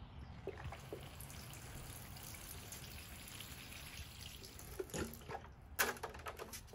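Water pouring from a plastic watering can into a potted plant's soil, a steady splashing that stops about four to five seconds in. A few sharp knocks follow near the end.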